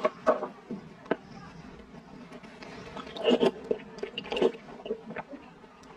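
Close-up eating sounds: slurping milky dessert with grass jelly and tapioca pearls off a wooden spoon, and chewing, in short wet bursts, loudest about three seconds in and again at about four and a half seconds.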